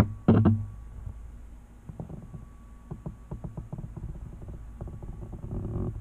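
Close handling noise as the camera moves over the fursuit: a few dull thumps right at the start, then scattered light clicks and a low rustle near the end.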